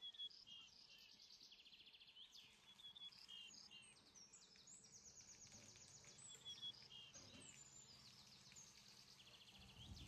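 Small birds singing, faint: quick trills and short chirps repeating one after another.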